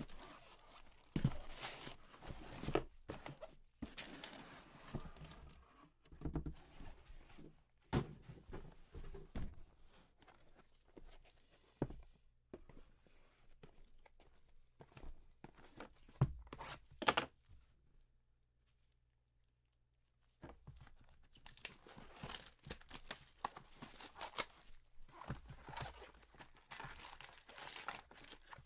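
Cardboard Panini Prizm football hobby boxes and their foil card packs being handled and opened: irregular tearing, rustling and crinkling with sharp little clicks and knocks. It drops almost to silence for about two seconds roughly two-thirds through, then the rustling resumes.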